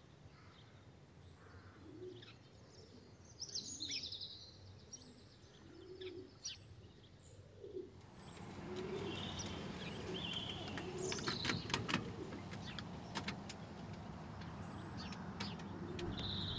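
Birds chirping and singing, with soft low calls underneath. About halfway through the background noise grows louder and a few sharp clicks are heard.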